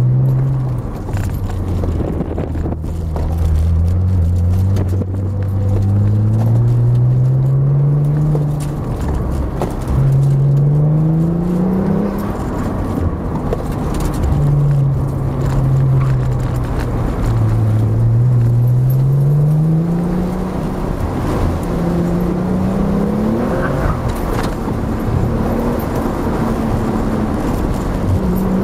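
Nissan 300ZX Twin Turbo's 3.0-litre twin-turbo V6 heard from inside the cabin, driven hard through an autocross course: the engine note climbs in pitch under acceleration again and again, dropping back each time the driver lifts or brakes for the next turn.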